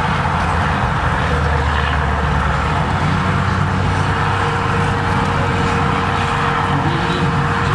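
A John Deere farm tractor's diesel engine running hard and steadily under heavy load as it drags a tractor-pulling sled. A thin steady whine joins in about three seconds in.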